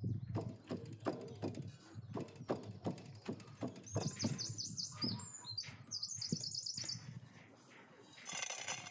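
Walnuts being pounded with a stone in a metal dish: steady knocking, about three strokes a second, for the first four seconds. A songbird then sings rapid, repeated high chirps for about three seconds. Near the end comes a brief rustling pour of crushed walnuts into an enamel bowl.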